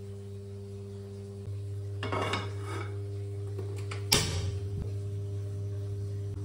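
Cookware being handled on a stovetop. There is some rustling, then one sharp clank of the metal wok just after four seconds in, over a steady low electrical hum.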